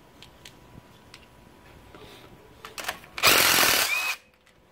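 DeWalt 20V MAX cordless impact driver hammering for about a second, about three seconds in, backing out a small bolt on the front axle disconnect's skid plate. A few light clicks of handling come before it.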